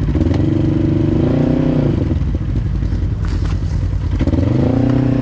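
Side-by-side UTV engine running under load, revved up and back down twice: once over the first two seconds and again near the end.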